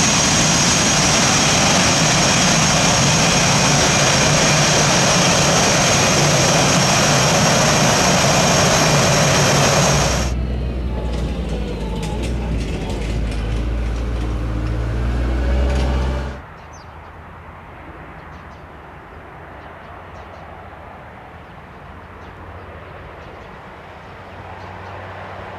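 Aircraft engines running loud with a steady high whine, cut off abruptly about ten seconds in. A lower rumble follows, and it drops away suddenly to a quiet background about sixteen seconds in.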